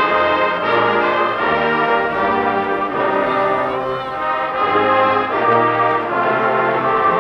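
Marching band playing, led by its brass section, with full held chords that change every second or so.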